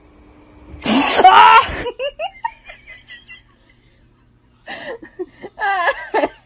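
A person laughing. A loud outburst comes about a second in, followed by short laughs that die away, and after a pause another run of laughter starts near the end.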